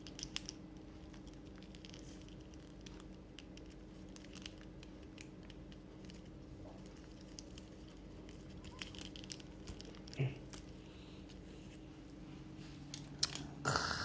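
Thin protective plastic film crinkling and rustling as it is peeled off a plastic action-figure part, with scattered small clicks of handling and a louder rustle near the end.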